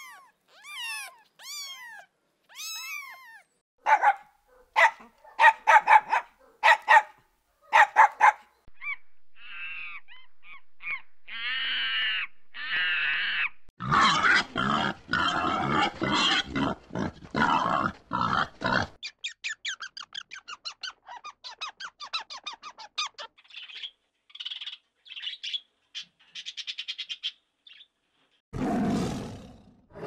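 A run of different animal calls: a kitten mewing several times with short falling cries at the start, a group of pigs grunting and squealing in the middle, and a tiger beginning to roar near the end, with other short high calls in between.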